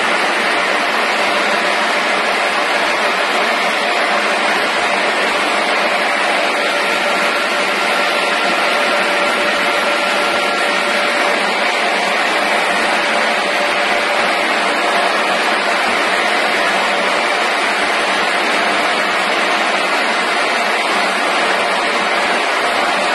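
Steady, loud hiss and whir of a continuous potato-chip frying line running, unchanging throughout.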